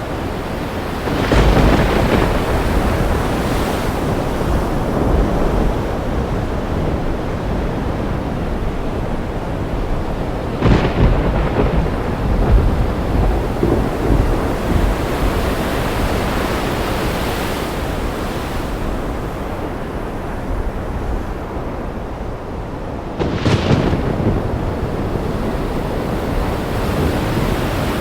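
Steady heavy rain with thunder: three sudden claps, about a second in, about eleven seconds in and about twenty-three seconds in, each trailing off into rumble.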